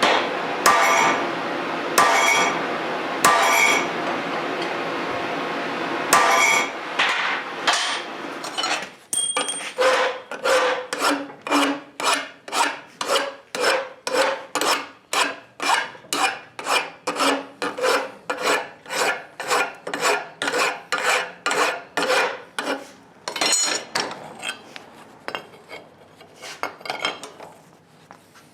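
Hand file stroking back and forth on steel in a steady rhythm of about two strokes a second, fading near the end. Before it, for the first several seconds, there is a steady noise broken by a few sharp knocks.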